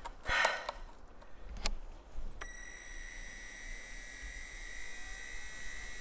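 After a few clicks, a steady high-pitched whine starts abruptly about two and a half seconds in and holds: a model jet turbine's electric starter spinning the engine during the preheat stage of its start-up sequence.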